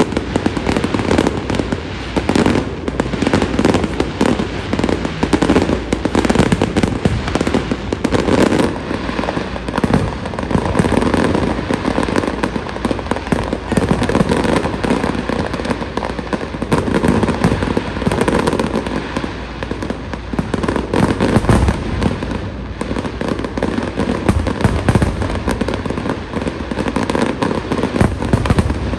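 Fireworks display: a dense, continuous barrage of many rapid, overlapping bangs.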